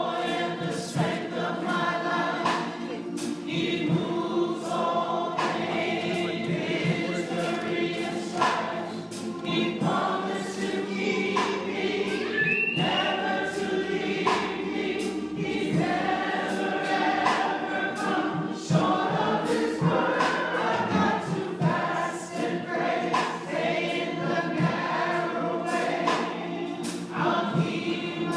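Church congregation singing a gospel song together in many voices, with sharp, regular beats keeping time throughout.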